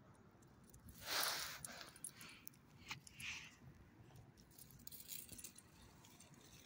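Faint, short rustling bursts and a light jingle as a leashed dog moves and sniffs about over dry plant litter on a curb. The strongest burst comes about a second in, and smaller ones follow every second or so.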